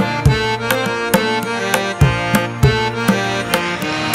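Instrumental background music: sustained melodic notes over repeated drum strikes.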